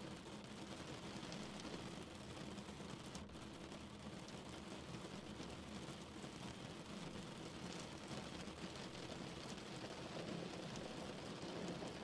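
Rain beating on a car's body: a steady hiss of rainfall with many small drop ticks, even throughout.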